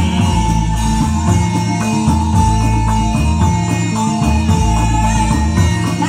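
Loud band music with a steady drum beat, a moving bass line and a held high melody note, played over a stacked loudspeaker sound system for the dancers.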